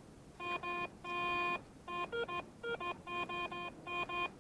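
Garrett ACE 350 Euro metal detector sounding a fast string of target beeps as the coil sweeps over a spot. Most beeps are one mid tone, one about a second in is held longer, and a couple around the middle come at a different pitch. The detector keeps signalling here, which the digger wonders may be interference from the wet ground.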